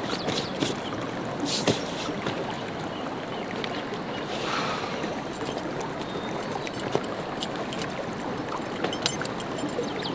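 Steady rush of a flowing stream, with a few faint clicks scattered through it.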